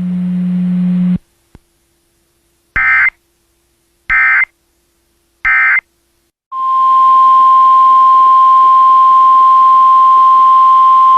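Emergency Alert System header: three short screeching bursts of SAME digital data, then the steady single-pitch 1050 Hz NOAA Weather Radio warning tone, which starts about halfway through. It is preceded by a steady low hum that cuts off about a second in.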